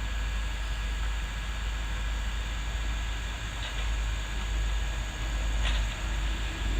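Backhoe's diesel engine running steadily under load, with a heavy low rumble and a couple of short crackles partway through.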